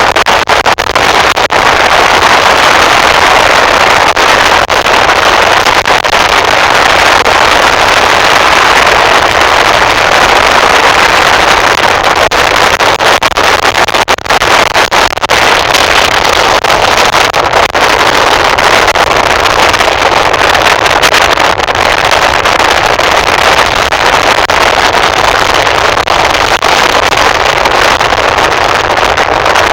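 Loud, steady rush of wind and road noise from a moving vehicle, with brief dips and crackles on the microphone.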